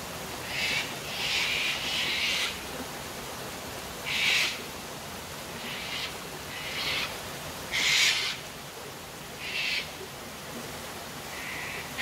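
White cockatoos screeching: a series of harsh, raspy calls every second or two, the loudest about four and eight seconds in, over the steady rush of a waterfall and stream.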